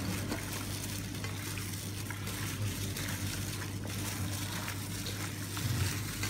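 Gloved hands kneading and massaging raw marinated pork chunks in a stainless steel bowl: irregular wet squishing and the rustle of plastic gloves, over a steady low hum.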